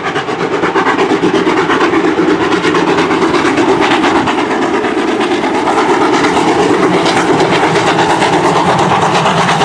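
GWR 5700-class 0-6-0 pannier tank steam locomotive working a train, its exhaust beating in a rapid, steady rhythm.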